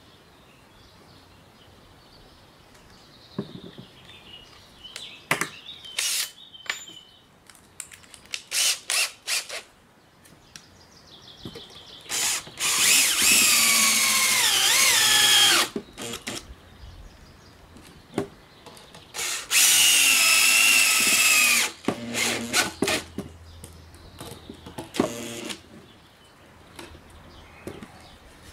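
Cordless drill driving screws through a pre-drilled plate into a driftwood root: several short trigger bursts and clicks, then two long runs of motor whine a few seconds apart, the pitch sagging under load partway through the first.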